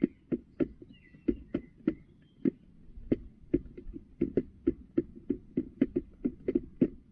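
A hen pecking feed from a plastic feeder tray: an irregular run of sharp taps, about three or four a second, with short pauses.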